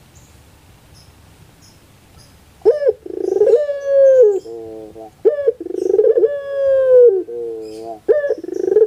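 Puter pelung dove cooing: after a quiet start, two full coo phrases, each a short rising note, a rolling note, a long held note that sinks slightly, then a few quick lower notes, with a third phrase beginning near the end.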